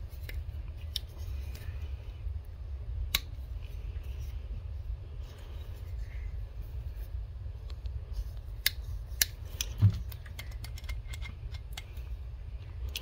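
Scattered sharp metallic clicks and light taps as the steel parts of a Grayman SATU folding knife and a small screwdriver are handled during reassembly, over a steady low hum.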